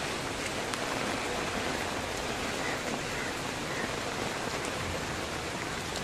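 Steady rain falling onto floodwater: an even hiss with a few faint patters.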